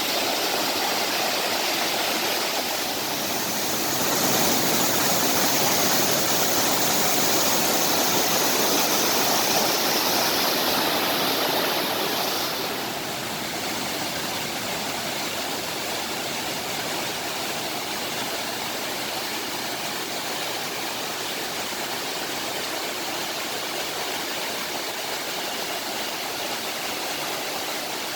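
Mountain valley stream rushing and splashing over rocks in a steady rush of water. It is louder and brighter in the first half, then a little quieter and duller from about halfway on.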